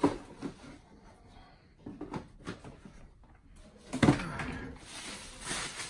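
Cardboard boxes and boxed vinyl figures being handled and set down: a sharp knock at the start, a few light taps around two seconds in, and a louder thump about four seconds in, then rustling near the end.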